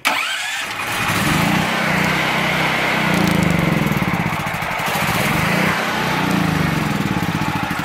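Chicago Electric portable generator's gas engine starting on its electric starter and catching at once, then running on choke with its speed swelling and dipping in slow waves about every second and a half.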